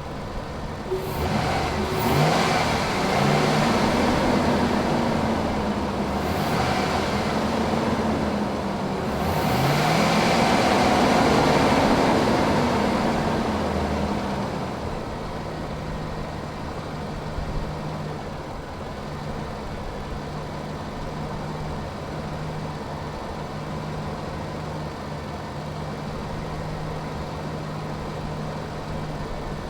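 Lincoln Navigator's 5.4-litre V8 revved up and let back down three times, the last rev the longest and loudest, then settling to a steady idle. The revving is to purge trapped air from the cooling system after a heater hose repair.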